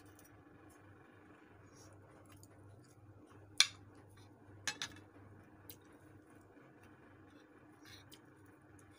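Spoon and fork clinking against each other and the plastic bowl as rice and tocino are scooped up: a sharp clink a few seconds in, two quick ones about a second later, then a few fainter ticks, over a faint steady hum.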